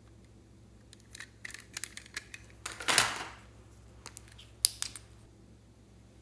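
Slime being handled and mixed by hand: scattered small clicks and crackles, a louder squelching press about three seconds in, and a sharp pop a little before five seconds.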